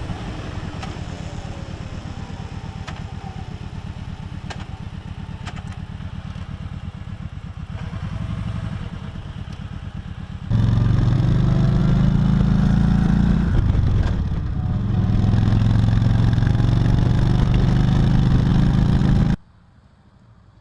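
Kawasaki Voyager 1700's V-twin engine idling with an even low pulse. About ten seconds in, the sound jumps abruptly to the bike running much louder, easing off briefly and pulling again, then drops away abruptly near the end.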